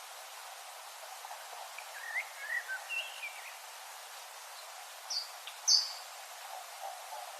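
Common nightingale singing short, separate phrases over a steady background hiss. A quick run of gliding whistled notes comes about two seconds in, then two short high notes around five seconds in, the second the loudest.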